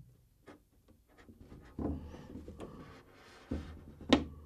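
Hobby knife blade scratching lightly along a clear polycarbonate RC truck body as a cutout is scored, with soft handling bumps of the plastic shell and one sharp click near the end.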